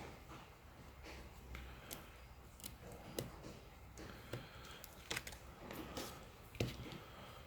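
Scattered small clicks and taps of small tools and parts being handled while reassembling a smartphone, with a louder click about three seconds in and another near the end, over a faint low hum.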